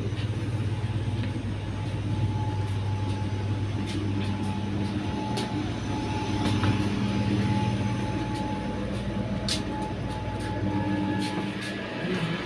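Steady hum of a Vande Bharat train coach heard from inside, with a faint steady whine above it and scattered small clicks and knocks.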